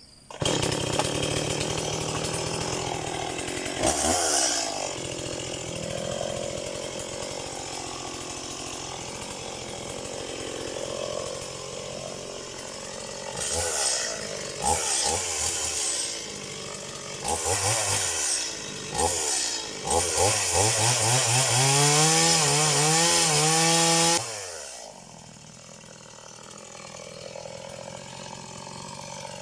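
Stihl MS180 two-stroke chainsaw running and cutting into a tree trunk, revved up and down repeatedly. About twenty seconds in it climbs to full revs and holds there for several seconds, then drops back to idle.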